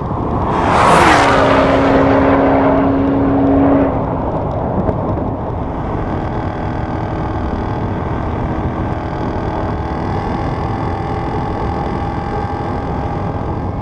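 Cabin sound of a Ford FPV GT-F Falcon's supercharged 5.0-litre V8 held flat out at about 295 km/h, a steady engine note under heavy wind and road roar. About a second in, a loud whoosh sweeps down in pitch and settles for a few seconds before easing back.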